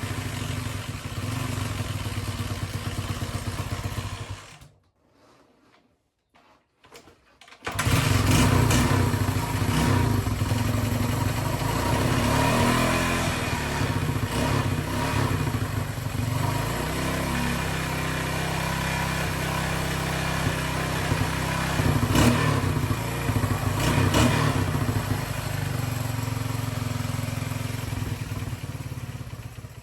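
1980 Honda XL185S single-cylinder four-stroke engine running steadily, with a few short revs. It drops out to near silence about five seconds in and is running again about three seconds later.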